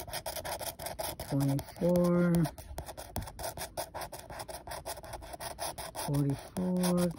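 A scratch-off lottery ticket being scratched with a small hard tool, a fast run of short rubbing scrapes across the card. Twice a short low hum that steps up in pitch sounds over the scraping.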